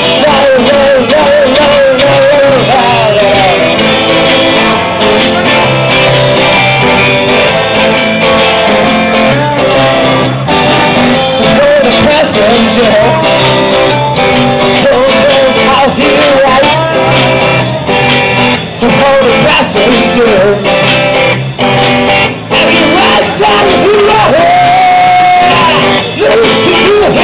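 Live band playing a song: a singer over guitar with a steady beat.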